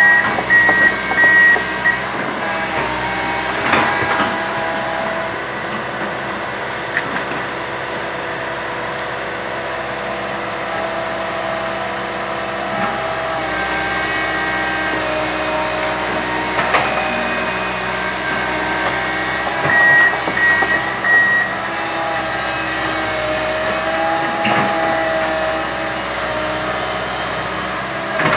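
Komatsu PC160 hydraulic excavator's diesel engine running under load, its hydraulic whine shifting in pitch as the machine works. There are a few sharp knocks, and twice a quick run of short electronic beeps: once at the start and once about 20 seconds in.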